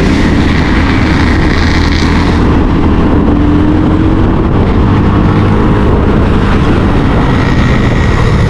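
Steady, loud running of a motor vehicle on the move: engine and road noise with some wind, unchanging throughout.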